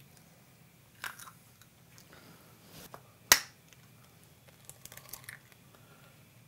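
Eggs cracked open one after another: three sharp shell cracks about two seconds apart, the middle one the loudest, with lighter clicks of shell around them.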